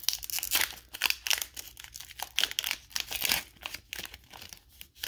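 Foil wrapper of a Pokémon card booster pack crinkling as it is handled and opened, a run of short, irregular crackles.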